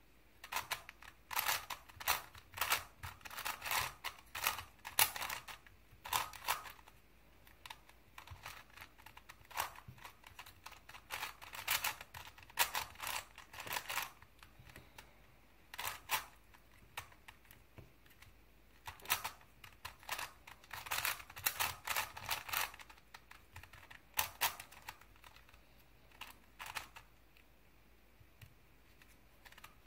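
Crazy 3x3 Plus Mars puzzle cube being turned by hand: its plastic layers click and clack in quick runs of turns, with short pauses between the runs.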